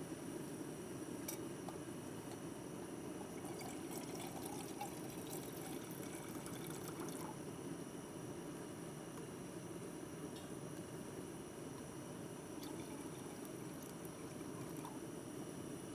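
Water being poured out and trickling, probably into a breakfast pouch, over a steady low rushing noise, with small liquid ticks through the first half.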